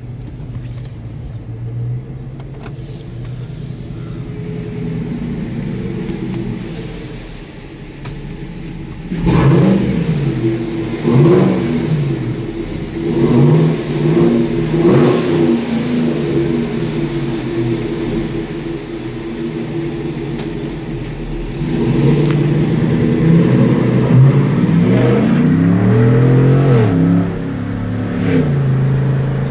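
A 2017 GMC Sierra's 6.2-litre V8 through a Corsa exhaust, heard from inside the cab. It cruises steadily at first, then from about nine seconds in it is revved up and down several times while passing through a stone tunnel, with more revs near the end.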